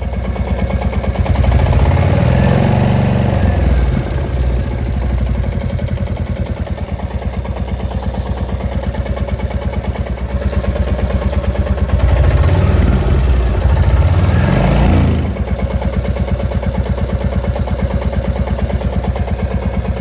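Royal Enfield Classic 350's single-cylinder J-series engine idling with a steady beat and revved up twice, once a couple of seconds in and again past the middle. The engine is still running cool, with only a slight tappet tick and no combustion clatter.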